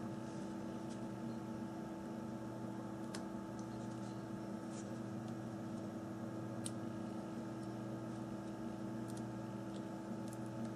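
A steady low electrical hum with a few faint, light clicks scattered through it, from small phone parts being handled during disassembly.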